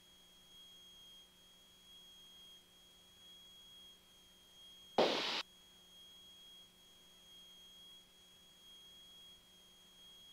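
Faint steady high-pitched whine in the cockpit audio, with one short burst of noise about five seconds in.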